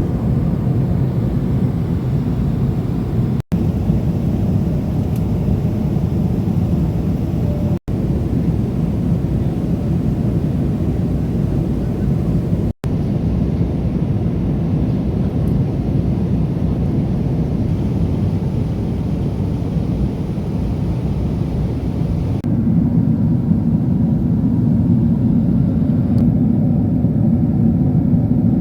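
Steady rumble of a Boeing 777-300ER's engines and airflow heard from inside the passenger cabin, in several short clips cut together, with brief dropouts between them.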